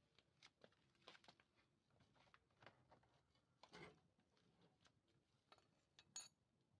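Near silence with faint, scattered clicks and taps, the sharpest about six seconds in.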